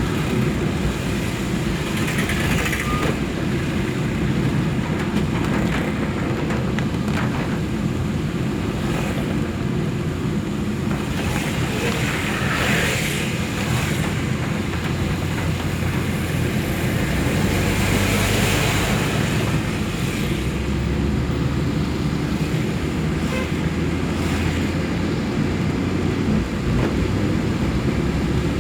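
Road traffic: a steady low rumble, with vehicles passing by about two, twelve and eighteen seconds in.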